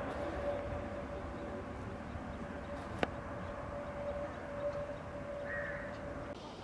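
Distant jet airliner engines running: a steady low drone with a single held tone over it, which stops shortly before the end. One sharp click about three seconds in.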